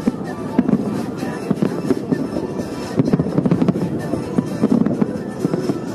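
Aerial fireworks going off in a dense, unbroken stream of bangs and crackles, with music playing alongside.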